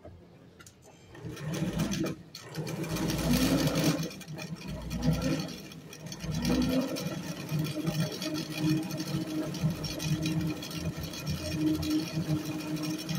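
Singer Facilita electric sewing machine running and stitching a decorative pattern from its white cam disc. It starts about a second in, runs in uneven spurts for the first few seconds, then settles into a steady, even run. The machine is working properly.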